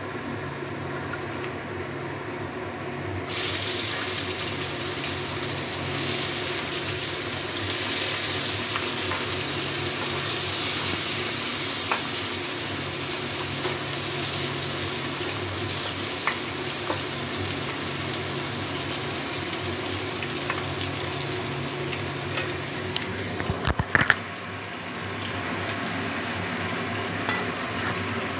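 Sliced onions hitting hot oil in a non-stick kadai: a sudden loud sizzle starts about three seconds in and runs on steadily as they are stirred with a wooden spatula, with a few light scrapes and knocks. The sizzle drops away sharply a few seconds before the end.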